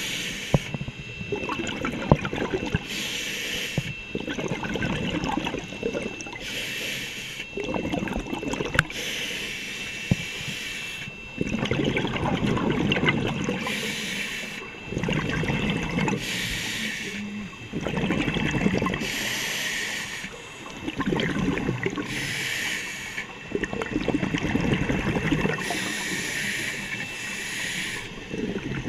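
Scuba diver breathing through a regulator: a hiss on each inhalation alternates with a bubbling rumble of exhaled air, in a steady rhythm of breaths every few seconds.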